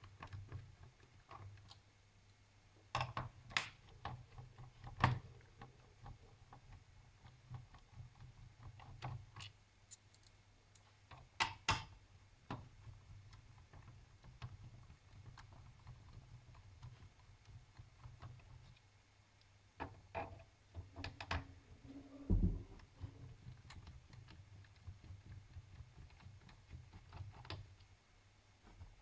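Scattered clicks and taps of a screwdriver, small screws and plastic parts as a laptop is taken apart, with a louder knock about 22 seconds in, over a low steady hum.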